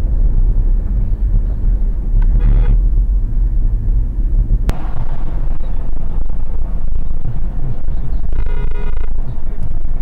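Low road rumble inside a moving car, with two short car-horn honks, one about two seconds in and one near the end. A single sharp click about halfway.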